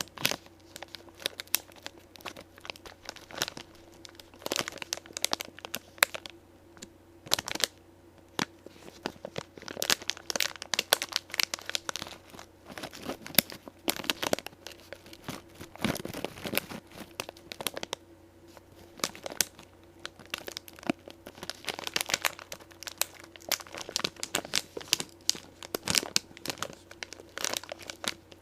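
Plastic snack packet of pork crackles being crinkled and handled, in irregular bursts of crackling with short pauses between them, over a faint steady hum.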